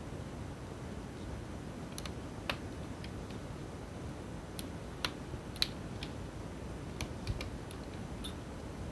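Scattered small clicks and taps from fingers handling plastic parts inside an open laptop, fitting the CMOS coin battery's wire and pressing a cable connector home, over steady low background noise.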